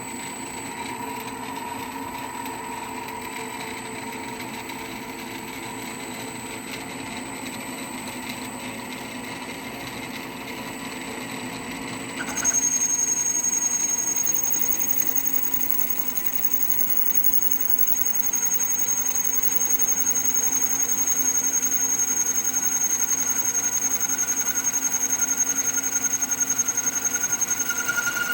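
BCA mini jig borer running with its boring head on the fine down-feed, taking a boring pass through thick alloy plate. About twelve seconds in the sound turns louder and a high, steady whine sets in and holds.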